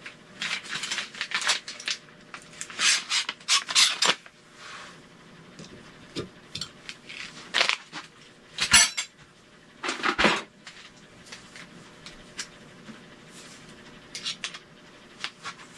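Metal screwdriver bits clinking and rattling together as they are picked out of their holder: a run of rattles over the first four seconds, then scattered single clinks.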